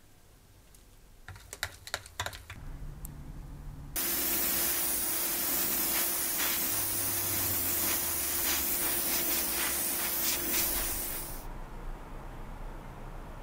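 Airbrush spraying paint onto a plastic scale-model car body: a loud, steady hiss that starts abruptly about four seconds in and lasts about seven seconds, with a steady low tone under it, then fades. A few light clicks and taps come before it.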